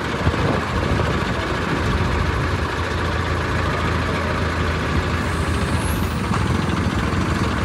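Diesel engines of hydra pick-and-carry cranes running steadily at close range while the cranes take up the weight of a wheeled excavator for the lift.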